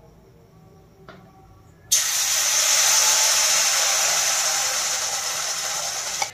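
Besan (gram-flour) paste poured into hot mustard oil in an iron kadhai, sizzling loudly. The hiss starts suddenly about two seconds in and slowly dies down.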